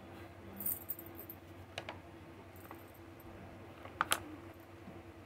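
Crinkling and crackling of a plastic insecticide powder packet being handled, with a few sharp clicks; the loudest is a close pair about four seconds in.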